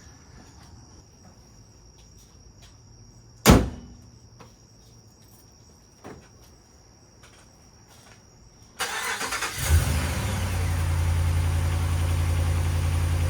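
A single loud knock, then a 2010 Ram 1500's 5.7-litre Hemi V8 cranks for under a second, catches and settles into a steady idle. The engine carries a cylinder-5 misfire fault code (P0305) and has just been fitted with new iridium spark plugs.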